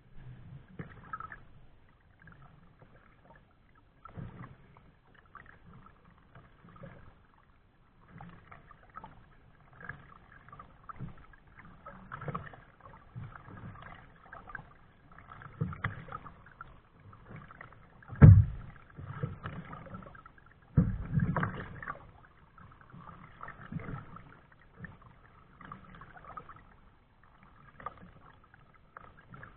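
Kayak paddling: irregular soft swishes and splashes of the paddle blades in the water, with one sharp knock a little past the middle and a louder splash a few seconds after it.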